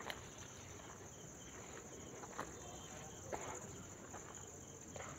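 Faint, steady chirping of crickets in a continuous high-pitched band, with a few faint clicks or knocks, one near the start and two between about two and a half and three and a half seconds in.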